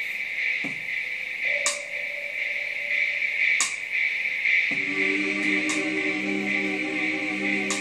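Experimental ambient electronic music: a steady high hiss-like drone with a short swish about every two seconds. About five seconds in, a sustained choir-like chord with slowly wavering pitch comes in.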